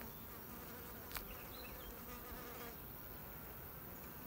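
Honey bees buzzing faintly around an open hive, with a single small click about a second in.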